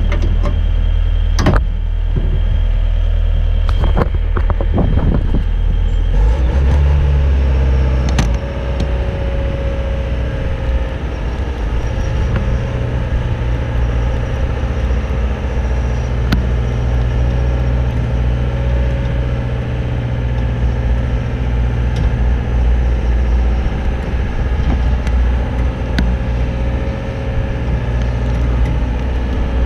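Boom lift's engine running steadily as the basket moves, a loud low drone. A few knocks come in the first seconds, and the engine note shifts about six to eight seconds in, after which a steady hum runs alongside it.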